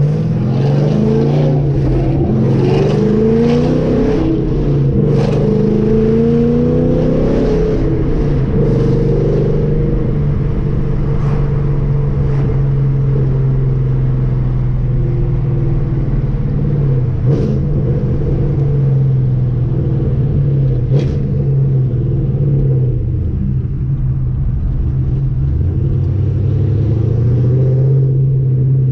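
Cammed Camaro SS V8 with an aftermarket camshaft, revving up with a rising pitch in the first several seconds, then running at a steady speed.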